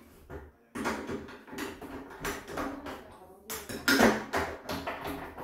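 Irregular metallic clicks and rattles from a bathroom door lever handle and its lockset being fitted and worked by hand, with the loudest clack about four seconds in.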